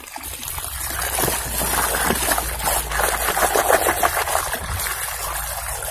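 Water running into a bucket of foamy, soapy water, with irregular splashing as a hand scrubs plastic toys in it.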